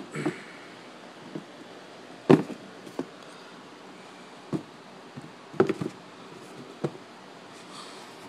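Handling noise: a handful of separate knocks and taps at irregular intervals, the loudest about two seconds in, over a low steady background hiss.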